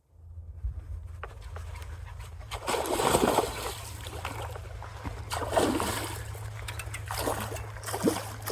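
Water splashing in several bursts, roughly every two seconds, over a steady low rumble: a hooked fish thrashing at the surface as it is reeled in.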